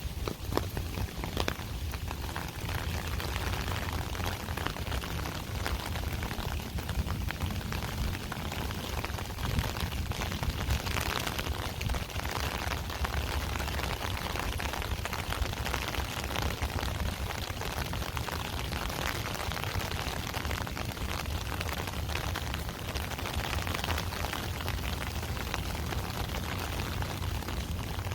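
Steady rain: an even hiss of many small drops pattering, over a low rumble.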